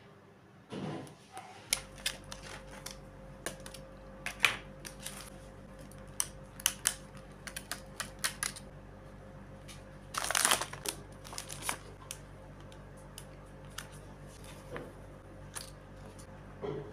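Hands handling paper-crafting supplies on a journal page: scattered light taps and clicks of a glue stick, paper and a plastic sticker packet, with a longer plastic rustle about ten seconds in. A faint steady hum sets in about two seconds in.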